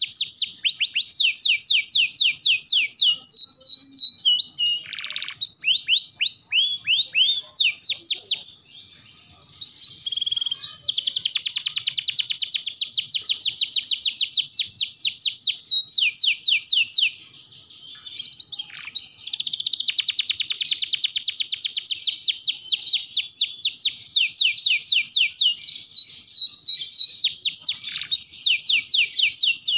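Domestic canary in full song: long, rapid trills of repeated downward-sweeping notes, broken by two short pauses, about nine seconds in and again near seventeen seconds in.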